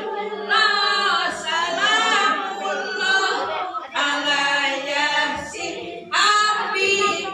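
A group of voices singing together unaccompanied, in phrases with short breaks between them.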